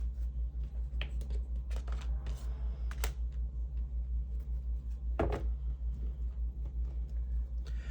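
Tarot cards being handled: a few soft clicks and short rustles as cards are pulled and laid down, over a steady low hum.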